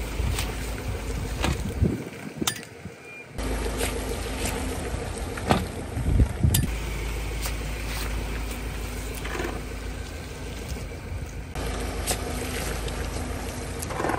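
Car idling with a steady low hum as its tyre rolls over bags of water-gel beads, with scattered sharp pops and cracks as the beads and bags burst under the wheel.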